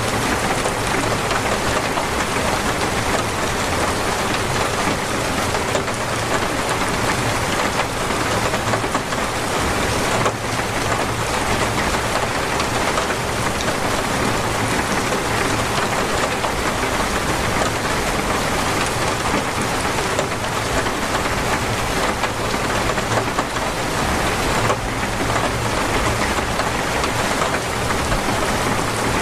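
Heavy, steady rain pouring down in a dense, even downpour.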